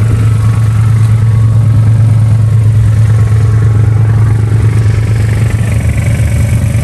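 An engine idling steadily, a constant low drone that does not change pitch.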